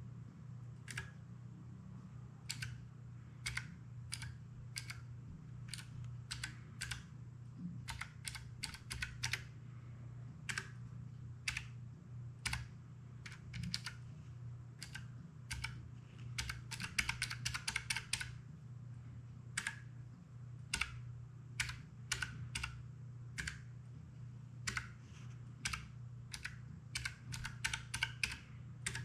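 Keychron K3 low-profile mechanical keyboard being typed on: separate key clicks at an uneven pace, with a couple of quick runs of keystrokes.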